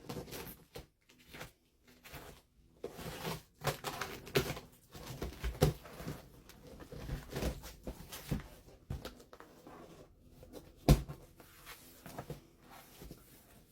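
A cardboard box being opened and its packaged contents handled: irregular rustling, tearing and crinkling of packaging with small knocks, and one sharper knock about eleven seconds in.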